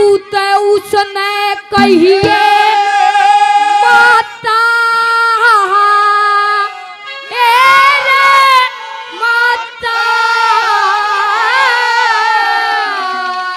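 A boy singing a Haryanvi ragini into a microphone in a high voice. He holds long, wavering notes in phrases broken by brief pauses, over a steady drone of accompaniment.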